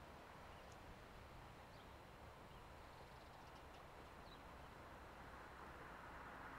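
Near silence: faint outdoor ambience with a few faint, short bird chirps.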